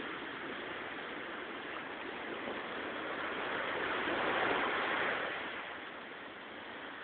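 Sea waves on the shore: a steady wash of surf that swells as a wave breaks about four seconds in, then eases off.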